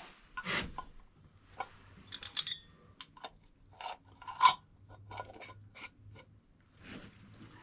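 Metal screw band being twisted onto a small glass canning jar, rasping on the glass threads, with scattered clicks and clinks of lids and glass. A sharp clink stands out about four and a half seconds in.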